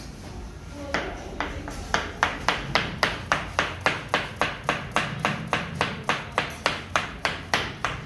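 Kitchen knife slicing a carrot into rounds on a plastic cutting board, each cut ending in a sharp knock of the blade on the board. The cuts start about a second in and settle into a steady rhythm of about three to four a second.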